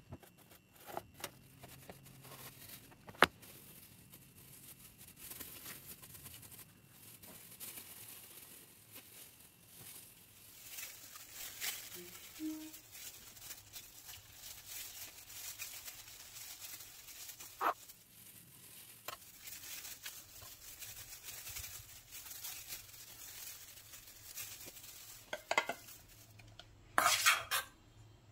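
Kitchen handling sounds: a knife and spoon clinking and scraping against a stainless-steel bowl as mango and banana pieces are cut and added. There is a sharp knock about three seconds in and a burst of clattering near the end.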